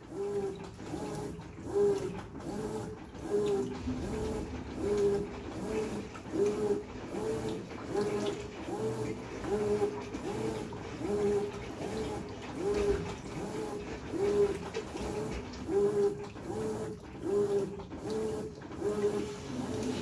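Brastemp BWK14 top-load washing machine agitating a load of towels in water: a short rising-and-falling motor whine repeats about one and a half times a second as the agitator strokes back and forth, over the slosh of churning water.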